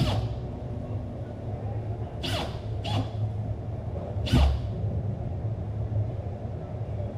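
Steady low rumble with four quick falling swishes: one at the start, two close together a little past two seconds in, and a louder one past four seconds.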